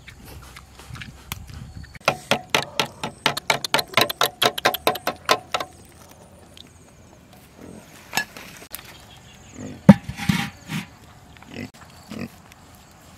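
A metal spoon beating raw eggs in a metal bowl: quick, even clinks, about seven a second for three or four seconds. Later a pig grunts a few times.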